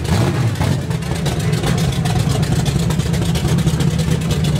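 Ford Fairmont wagon's small-block Ford V8 idling loudly, with a rapid, even exhaust pulse.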